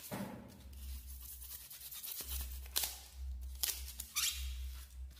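Utility knife blade cutting through a styrofoam sheet in a series of short strokes, a dry scratchy rasp.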